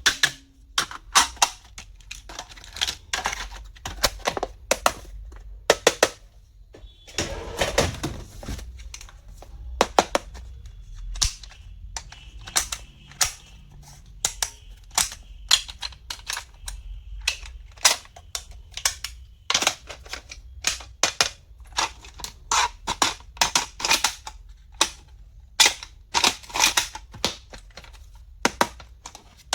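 Small stationery items being handled: many sharp clicks and taps at an irregular pace, with a longer scraping rustle about seven seconds in.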